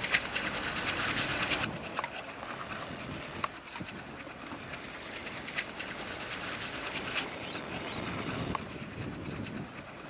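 Twin ALCo WDM3A diesel locomotives hauling a passenger train, heard from far off as a steady running and rolling noise with a few faint clicks. The noise drops abruptly about two seconds in.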